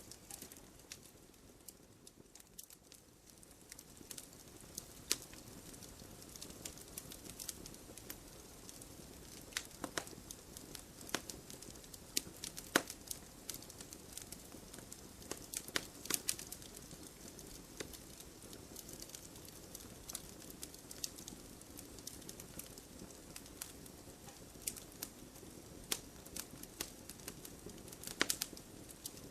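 Wood fire burning in a fireplace: irregular crackles and sharp pops from the burning logs over a soft steady hiss.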